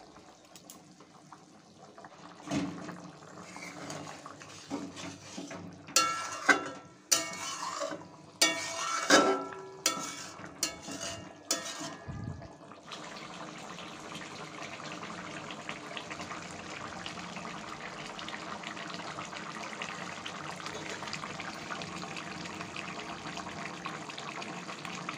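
A spatula clinking and scraping against a metal kadai as a fish curry is stirred, with several sharp knocks in the first half. After that the curry gravy bubbles steadily at a simmer.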